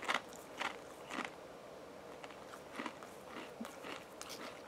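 A Pringles potato crisp crunching as it is chewed: a few sharp crunches in the first second or so, then softer, sparser chewing.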